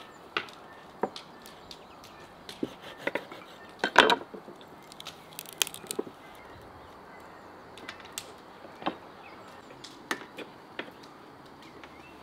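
Kitchen knife cutting a raw whole duck on a wooden cutting board: irregular clicks and knocks of the blade against the board, the loudest cluster about four seconds in.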